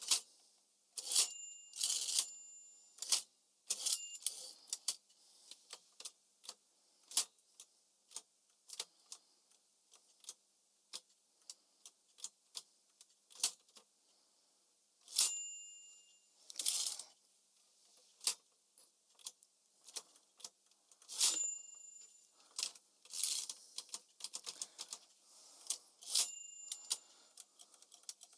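Smith-Corona Calypso manual typewriter being typed on: sharp, irregular key and typebar clacks, with the margin bell dinging about five times, each ding followed by a longer rasping sweep.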